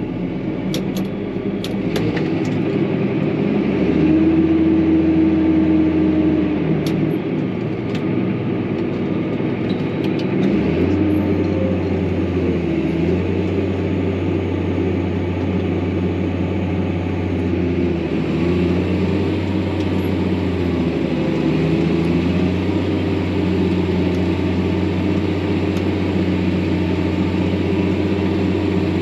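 Farm tractor's engine running steadily while hauling manure, its low drone stepping up and down in pitch several times. A few sharp clicks or rattles come in the first several seconds.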